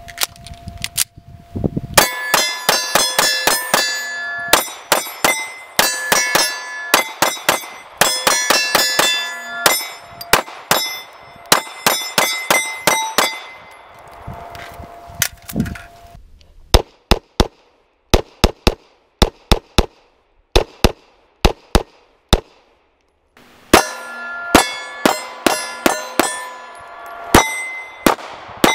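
Rapid strings of 9mm Glock pistol shots, with steel targets ringing out after hits. In the middle stretch the shots come singly and more spaced, with no ringing after them.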